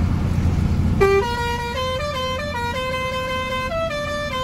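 Truck's musical horn playing a tune of stepped notes, starting about a second in, over the steady drone of the truck's engine.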